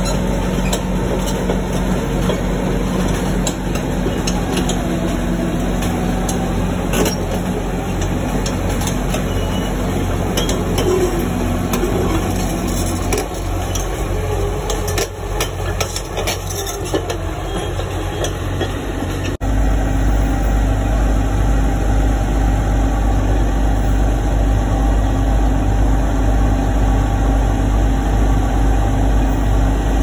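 Caterpillar crawler bulldozer's diesel engine running steadily, with scattered clicks and knocks for a few seconds past the middle. About two-thirds of the way through the sound cuts sharply to another heavy diesel engine idling with a steady low drone.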